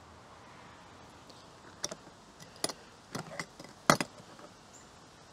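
Hard plastic toolbox being handled: a string of sharp clicks and snaps starting about two seconds in, the loudest about four seconds in.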